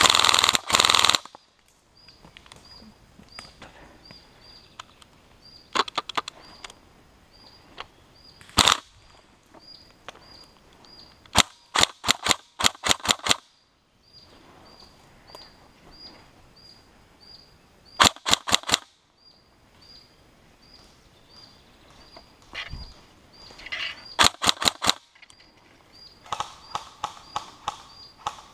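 Airsoft guns firing: a loud rapid burst right at the start, then short strings of sharp shots every few seconds, some single and some in quick runs of four to eight.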